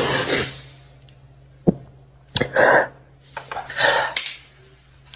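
A person chewing noisily: short mouth noises about once a second, with a sharp click a little under two seconds in, over a steady low hum.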